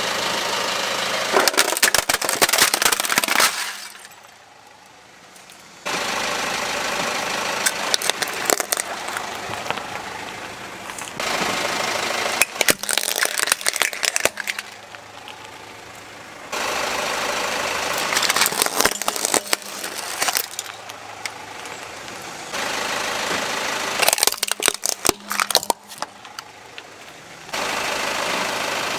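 Car tyre rolling slowly over plastic toys on gritty concrete, crushing them: the crunch of grit under the tread with clusters of sharp plastic cracks as each toy breaks. Several separate crushes follow one another, each starting abruptly.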